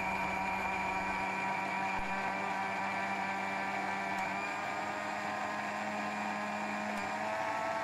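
Electric mixer grinder running at a steady whine as it wet-grinds coconut, turmeric, shallots and tamarind with water into a fine paste. Its tone shifts slightly near the end.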